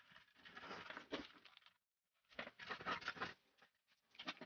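Hands handling wires and a small circuit board inside a wooden speaker box: rustling, scraping and small clicks in irregular bursts, broken by a short silence about two seconds in and ending in a few sharp clicks.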